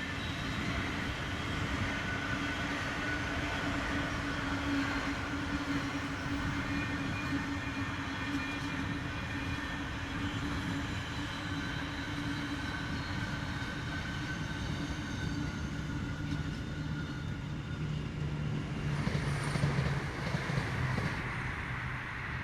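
A train running past on the main line: a steady rumble with a low drone and higher whining tones, swelling in loudness about nineteen seconds in.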